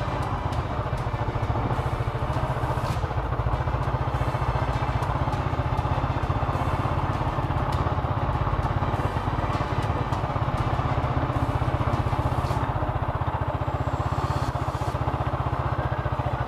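Motorcycle engine running steadily while riding, with road noise and a few sharp knocks from the rough, partly unpaved road surface.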